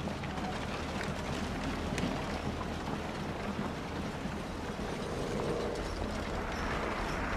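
A steady low engine rumble under a noisy hiss, growing a little louder near the end.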